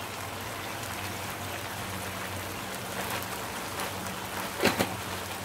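Three-flavour chilli sauce sizzling and bubbling in a hot wok, a steady crackling hiss over a low steady hum. A short sharp clatter near the end, such as the spatula against the wok.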